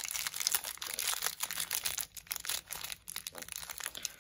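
Small clear plastic bag crinkling as fingers work it open and pick at the metal keychain parts inside: a dense run of crackles and small clicks, busiest in the first two seconds and thinning toward the end.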